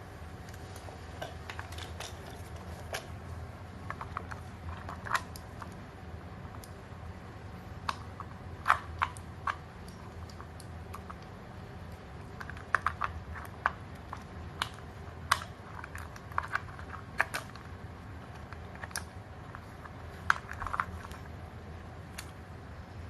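Irregular small clicks and taps of tools and hard parts being handled while an electronic speed controller is taken apart, over a steady low hum.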